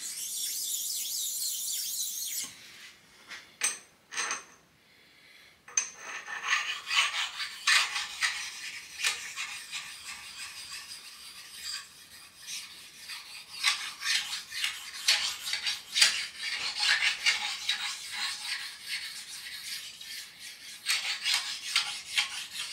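Flat abrasive stone rubbed back and forth along the underside of a steel linear guide rail: a gritty, scratchy rasping in many irregular strokes, the rough sound that marks high spots and burrs still on the rail. It opens with a short hiss and a few knocks, and the steady rubbing starts about six seconds in.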